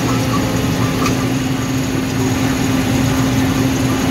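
Combine harvester running steadily while harvesting corn: a constant machinery drone with a steady, unchanging hum.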